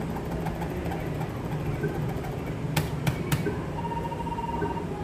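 Steady machine and room hum around an electronic bingo gaming machine, with three sharp clicks a little before the middle and a short, steady electronic beep near the end.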